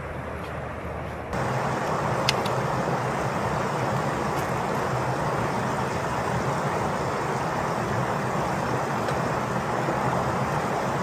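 Steady rushing noise with no clear pitch that jumps louder about a second in and then holds level, with one short high click about two seconds in.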